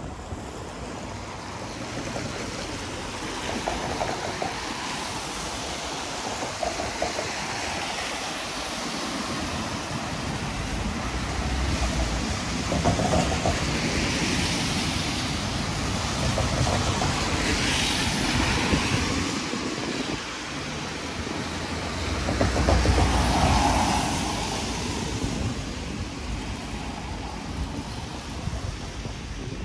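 Vehicles passing on a wet street, a steady hiss that swells and fades several times, with a low rumble as the louder ones go by.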